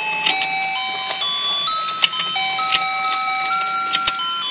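Battery-powered toy fishing-pond game playing its simple electronic tune, one plain beeping note at a time stepping up and down, with scattered sharp plastic clicks from the turning pond and the toy rod.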